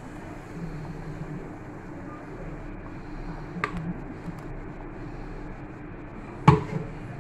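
A steady low hum and hiss of cooking, with a light click about halfway and a single sharp knock near the end, typical of a spoon striking the rim of a metal cooking pan.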